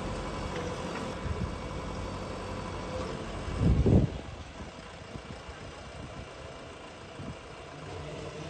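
A motor vehicle engine running steadily at idle, with a brief louder low rumble about three and a half seconds in.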